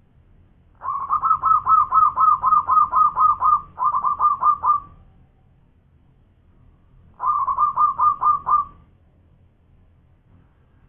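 Zebra dove (local Indonesian perkutut) singing its staccato cooing song: a long run of quick short notes, about five a second, a shorter run right after, and another short run about seven seconds in.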